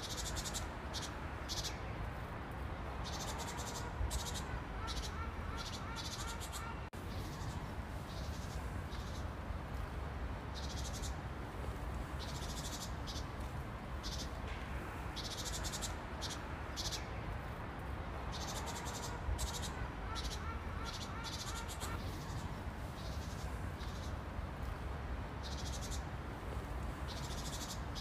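Insects chirping in short, repeated high-pitched bursts, over a steady low background rumble.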